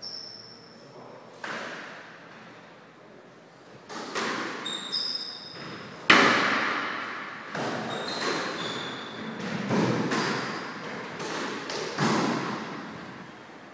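Squash rally: the ball struck by rackets and hitting the court walls, each hit echoing in the court, about nine hits with the loudest about six seconds in. Short squeaks of sneakers on the wooden floor come between the hits.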